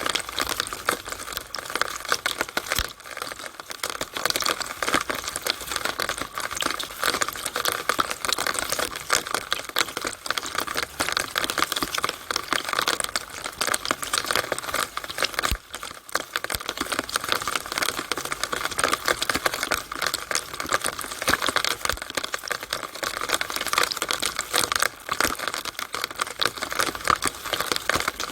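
Rainwater running and dripping in a downspout on a rainy day: a steady, dense, irregular tapping of drops and splashes inside the pipe.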